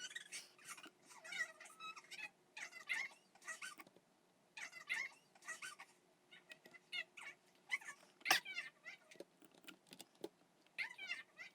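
A pet animal giving repeated short, high-pitched wavering cries in runs of several, with a single sharp click about eight seconds in.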